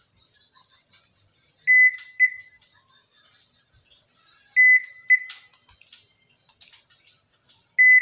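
Toshiba AW-9770S top-loading washing machine control panel beeping three times, each a long beep followed by a short one, about three seconds apart, with a few faint clicks in between. The beeps come while the Wash, Spin and Super Spin Dry buttons are held down at power-on, the button combination for resetting the E71 error code.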